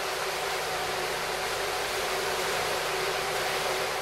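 Steady rushing and splashing of water as a towed ship model's bow cuts through the tank, throwing up its bow wave, with a faint steady hum underneath.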